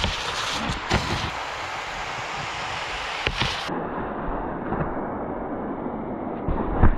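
Snowboard sliding over snow and across a PVC-pipe rail: a steady rushing scrape broken by three sharp knocks, about one, three and seven seconds in, as the board strikes the tube and lands.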